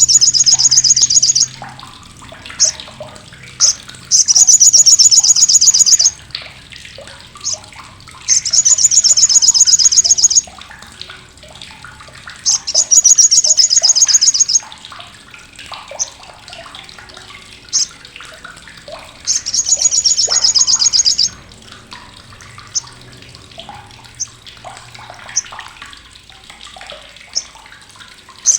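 Olive-backed sunbird (sriganti) giving its loud, harsh, sharp chattering 'crecetan': five high buzzy rattles of about two seconds each, with short sharp chips in between.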